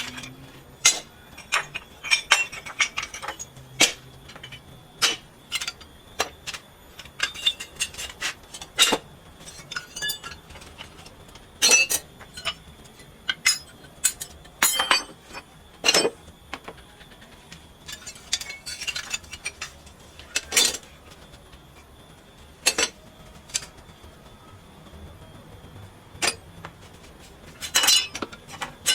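Loose metal pieces clinking and clanking as they are handled and set or tossed down, in irregular clusters of sharp knocks with short pauses between.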